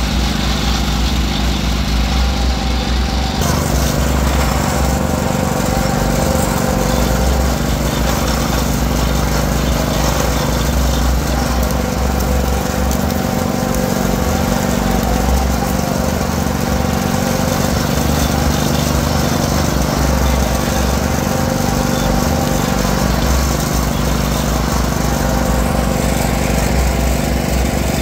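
Motorized sugarcane juicer running steadily, its rollers crushing sugarcane stalks as they are fed through, with a constant low mechanical hum.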